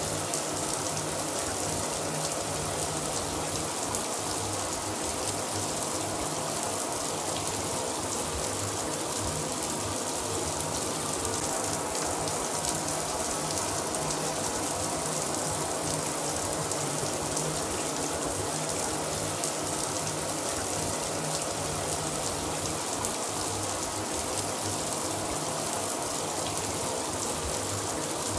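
Shower running steadily: water spraying and splashing down in an even hiss.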